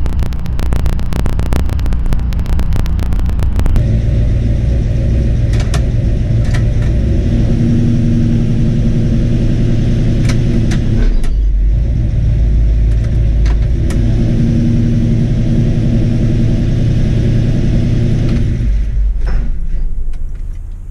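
Ford 351 Cleveland V8 running as the car is driven. It pulses roughly for the first few seconds, then settles into a steady drone, with a brief change about halfway, and dies away near the end.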